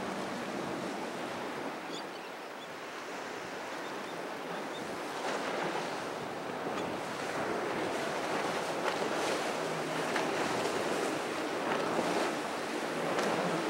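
Waves and boat wake washing, with wind buffeting the microphone, under the faint low hum of passing boats' outboard motors.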